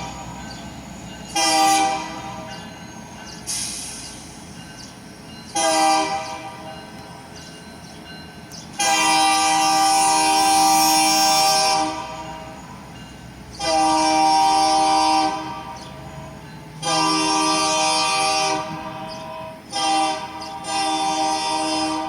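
Union Pacific locomotive's Nathan K3LA three-chime air horn sounding a series of loud blasts. Some are short and others are held for two to three seconds, with the running train heard beneath.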